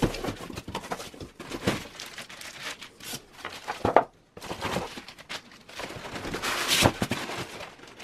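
Cardboard box and plastic wrap being handled: irregular rustling, crinkling and scraping as the foam packing insert is taken out and the plastic-wrapped tower fan is lifted from its box, with one sharp knock about four seconds in.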